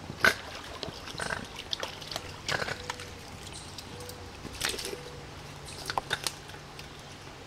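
Cairn terrier moving through shallow pond water and leaf litter with a freshly caught fish: a handful of short, sudden splashes and rustles, the loudest right at the start.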